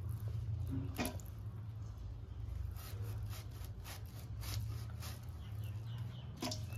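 Peeled raw young jackfruit being sliced thin against an upright bonti blade: a few short crisp cuts spread out, the sharpest about a second in, over a steady low hum.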